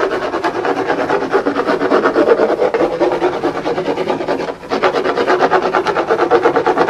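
Vigorous hand rubbing against a hard surface: a fast, even run of back-and-forth rasping strokes, with a brief pause about four and a half seconds in.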